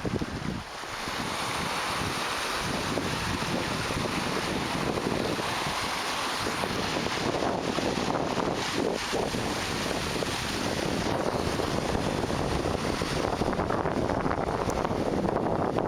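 Lake Superior waves breaking steadily against shoreline rocks, a continuous rushing wash of surf, with wind buffeting the microphone. The surf swells up about a second in.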